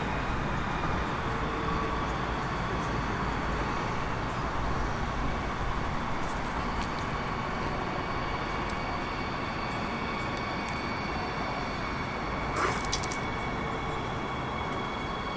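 Class 462 Siemens Desiro HC electric multiple unit approaching slowly, a steady rumble and hiss with faint whining tones that grow stronger. About 13 seconds in there is a brief metallic clinking with a high ring.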